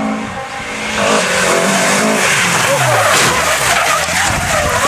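Rally car engine running as the car comes in, its pitch falling about two seconds in as the car loses grip and slides sideways on wet tarmac, with tyre-skid noise building and continuing to the end.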